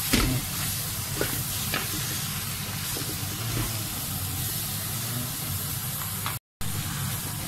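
Raw chicken pieces sizzling in hot oil in a wok as they are stirred and tossed with a spatula, with a few sharp clicks of the utensil against the pan. The sound cuts out for a moment about six and a half seconds in.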